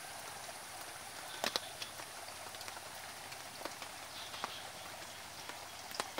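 Steady outdoor background hiss with a few sharp, scattered clicks, the loudest about a second and a half in and another near the end.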